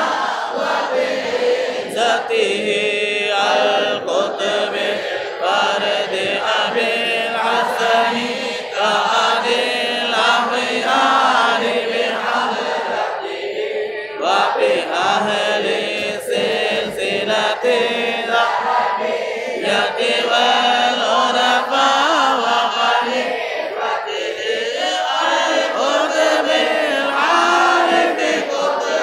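A group of men chanting a devotional recitation together in unison, in continuous phrases of a second or two.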